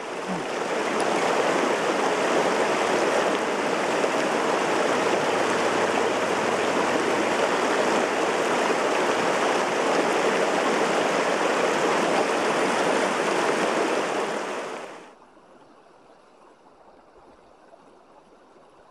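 Rushing mountain river water tumbling over rocks, a loud steady roar that cuts off abruptly about fifteen seconds in, leaving only a faint murmur of the current.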